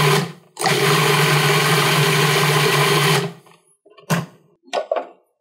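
Cuisinart 14-cup food processor pulsing a chimichurri of chopped parsley, olive oil and vinegar: the motor runs, stops for a moment, then runs again for about two and a half seconds and cuts off. A few short knocks follow near the end.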